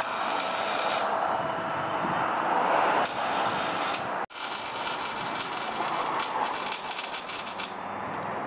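A ratchet wrench working on the exhaust fasteners under the car, in rapid runs of clicking with bursts of hiss. The sound drops out briefly about four seconds in.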